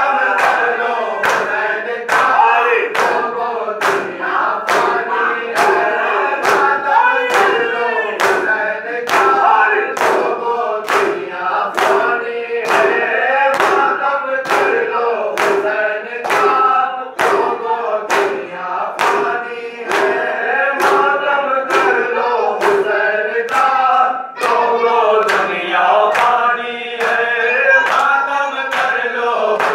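A group of male mourners chanting a noha (lament) in chorus while beating their chests in unison, the sharp slaps landing in a steady rhythm of about three every two seconds.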